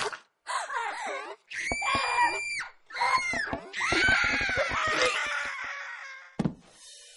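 Several screams, one after another and then overlapping, some wavering and some held long and high. A single low thud follows about six seconds in.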